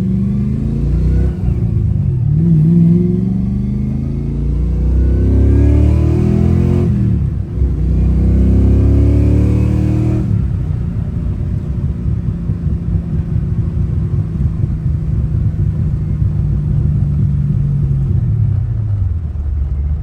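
Fox-body Ford Mustang engine being revved up and down several times, then settling to a steady idle that drops a little lower near the end.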